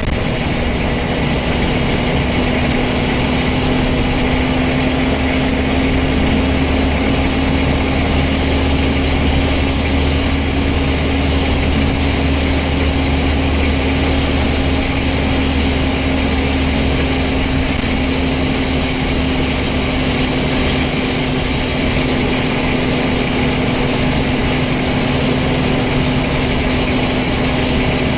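The Scania N94UD double-decker bus's nine-litre five-cylinder diesel engine running with a steady drone, heard from inside the lower deck. A deep rumble under it fades out about twenty seconds in.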